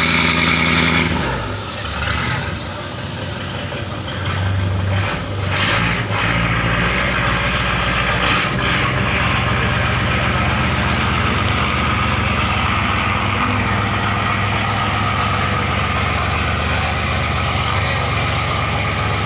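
Inboard diesel engine of a wooden fishing boat running steadily with a low hum, a little louder from about five seconds in.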